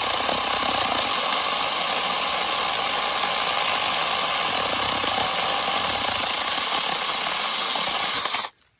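Goreson 6-inch cordless electric mini chainsaw running steadily as its chain cuts through the trunk of a healthy young tree. The motor stops suddenly near the end, once the trunk is through.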